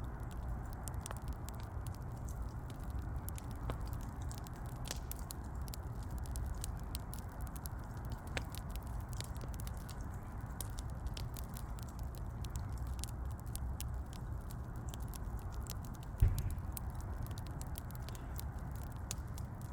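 Wood fire burning, crackling with frequent small snaps over a low steady rumble, with one louder pop about sixteen seconds in.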